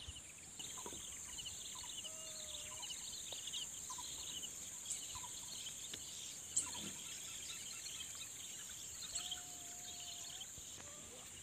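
Rural swamp ambience: a steady high-pitched drone of insects with many small birds chirping, and two short whistled notes, one about two seconds in and one near the end.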